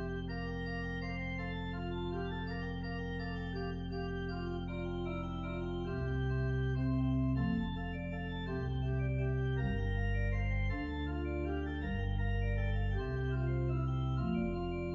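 Church organ playing a hymn tune in full sustained chords: the bass holds one long note at first, then begins to move note by note about six seconds in.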